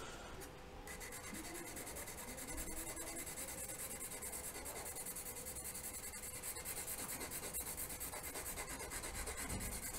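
A stick of hard Nitram charcoal scratching across coarse-textured watercolour paper as a patch is shaded in quick back-and-forth strokes, about four a second. It starts about a second in.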